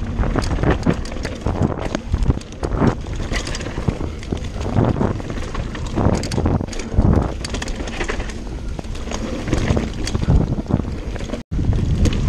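Mountain bike riding fast down a dirt trail: wind rushing over the microphone, tyres on dirt, and frequent clattering knocks from the bike over bumps and roots. The sound cuts out for an instant near the end.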